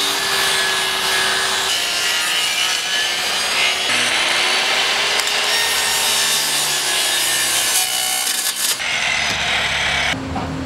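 Skilsaw 2.5 HP circular saw cutting through OSB wall sheathing and its Tyvek house wrap, running under load in a few stretches, its motor pitch rising and falling. The saw stops near the end.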